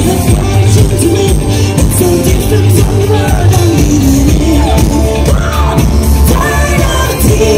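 Live pop music played loud through open-air festival PA speakers: a woman singing lead into a handheld microphone over heavy bass and a steady dance beat.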